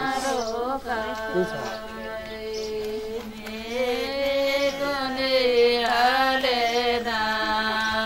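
Music: an ornamented, wavering melody of long held notes over a steady drone, without breaks.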